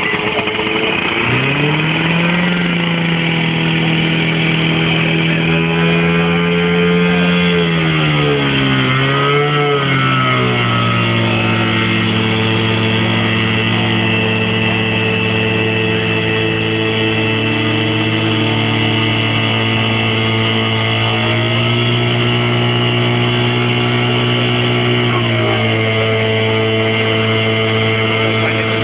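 An engine revs up about a second in, then runs steadily at high speed. Its pitch dips and recovers briefly around nine seconds, settles slightly lower, and shifts again near the end.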